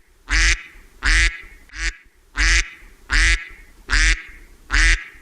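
Duck quacking repeatedly: about seven short, loud quacks at an even pace, roughly one every three-quarters of a second.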